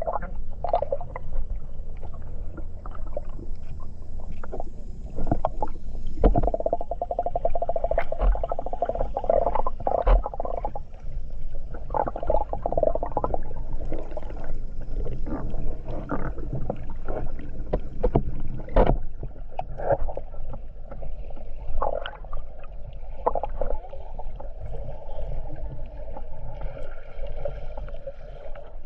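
Water sloshing and gurgling close to the microphone, over a low rumble, with frequent small knocks and clicks.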